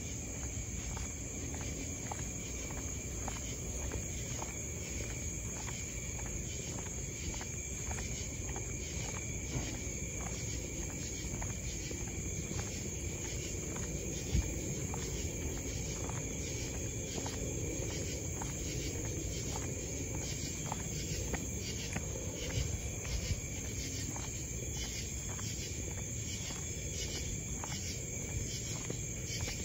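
Night insects such as crickets trilling steadily in a high pitch, with the walker's footsteps at about two a second.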